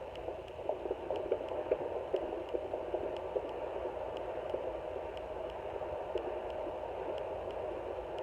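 Fetal heartbeat through a handheld home fetal Doppler at 17 weeks of pregnancy: quick, regular whooshing pulses over the Doppler's steady static hiss. The pulses are strongest in the first few seconds.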